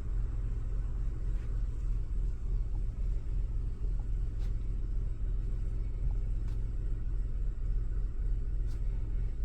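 Small car engine idling steadily, a low even rumble, with the engine management light being cleared after a new oxygen sensor was fitted.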